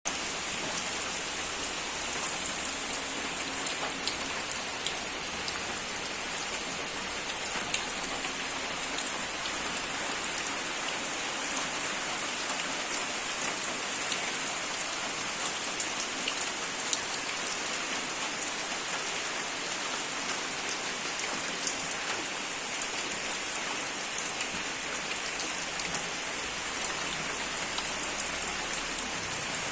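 Steady rain falling on a surface, an even hiss scattered with sharp drop ticks.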